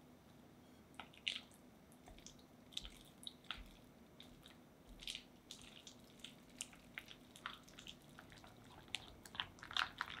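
Silicone-coated whisk beating soft cream cheese in a glass bowl: irregular soft clicks and taps of the wires against the glass, with squishing of the cheese. The clicks start about a second in and are loudest near the end.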